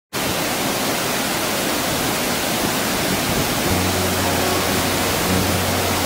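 Steady rushing of a waterfall and whitewater rapids, an even noise with no breaks. About halfway through, a low held note of background music comes in under it.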